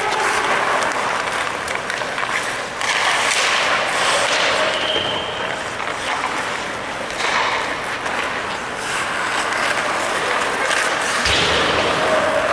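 Ice hockey practice on the rink: skate blades scraping and carving the ice in repeated swells, with sharp stick-and-puck clacks and a heavy thud near the end.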